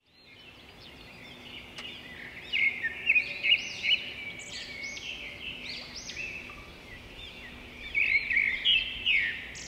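Small birds chirping in quick, repeated calls, with louder stretches about a third of the way in and again near the end.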